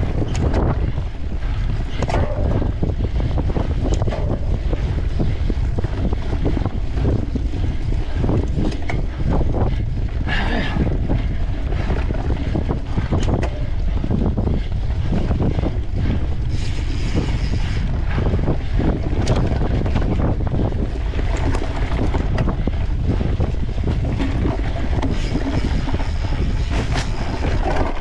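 Wind buffeting the microphone of a camera riding on a mountain bike at race speed, over the steady rumble of the tyres on a sandy forest trail. Frequent knocks and rattles come from the bike over rough ground.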